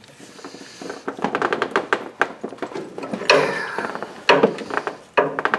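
Tool handle working against the engine's crank bearing while trying to turn a KA24DE engine, with a run of quick clicks and knocks and a few heavier clunks; the engine does not turn.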